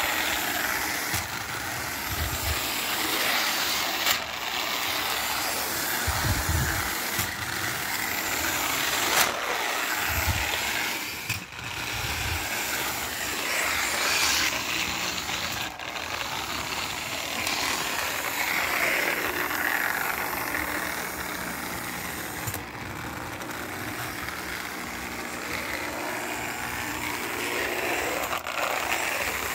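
Two Lionel No. 60 toy trolleys running together on three-rail track: a steady whirring and rattling from their small electric motors, gears and wheels, with a few short low thumps.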